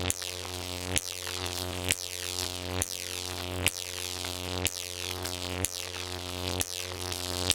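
Jacob's ladder high-voltage arc buzzing with a steady electrical hum, and a sharp crack about once a second as each arc climbs the rods, breaks and re-strikes at the bottom.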